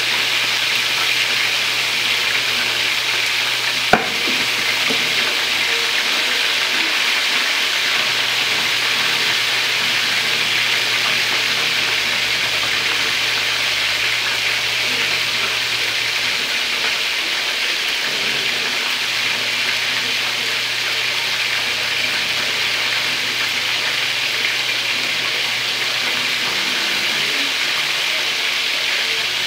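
Chicken drumsticks frying in hot oil in a shallow pan: a steady, dense sizzling hiss, with a single sharp click about four seconds in.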